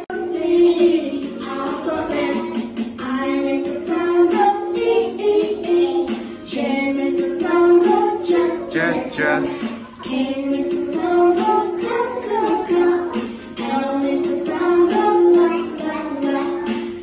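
Children's song: a woman singing with young children singing along.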